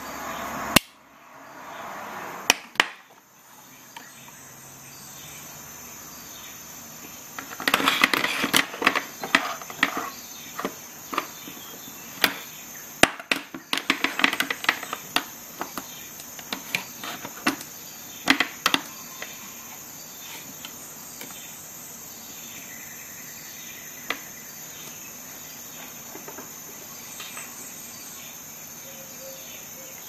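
A run of sharp clicks and handling noises, likely a Leatherman Super Tool multitool being handled. The clicks come in a cluster from about a quarter of the way in to around two-thirds through, over a steady high-pitched drone.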